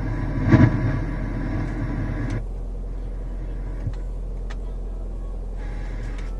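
Car radio on a newly fitted Nissan Versa/March factory head unit being tested: broadcast sound with a loud thump about half a second in cuts off after about two and a half seconds, a couple of faint clicks follow, and the sound comes back near the end. Under it, the steady low hum of the Nissan Tiida's engine idling.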